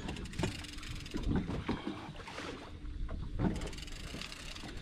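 Water sloshing against a boat's hull on open sea, with a faint steady hum. Rapid fine ticking from the angler's fishing reel comes in briefly at the start and again near the end.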